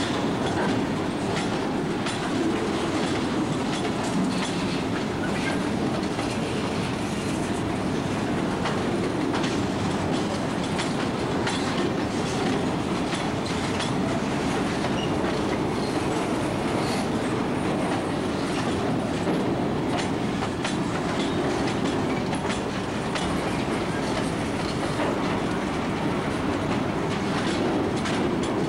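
Empty centerbeam flatcars of a freight train rolling past: a steady rumble of wheels on rail with frequent clicks as the wheels cross rail joints.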